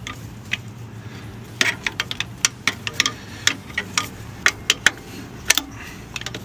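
Ratchet spanner clicking in short, irregular runs of sharp metallic ticks while the fuel pipe nut on a diesel engine's unit pump is undone, over a low steady hum.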